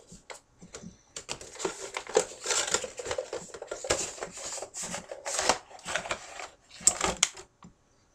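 Cardboard box and clear plastic blister tray of an action figure crinkling and rustling as they are handled and the inner tray is slid out, with sharp crackles and scrapes throughout. It stops shortly before the end.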